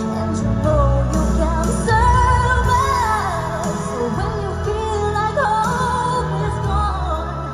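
Pop music with singing over a steady bass line.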